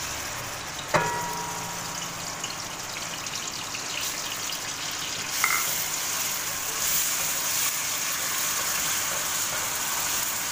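Blended onion sizzling in hot oil while being stirred with a silicone spatula, the frying growing louder about five seconds in. A sharp clink with a brief ring about a second in.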